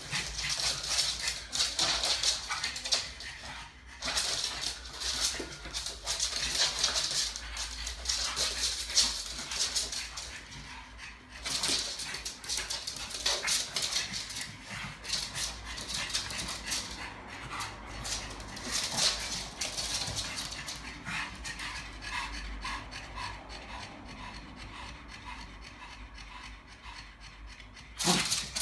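Pugs panting and snuffling in excitement as the male courts and tries to mount the female, in hissy stretches broken by short pauses. In the second half come short, thin whimpers.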